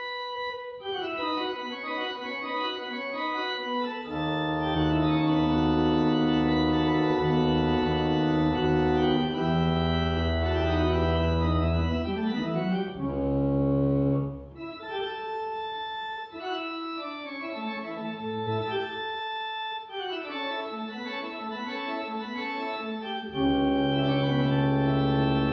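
Church pipe organ playing a polyphonic piece in sustained chords. Deep pedal bass notes come in about four seconds in, drop out about halfway through, and come back near the end.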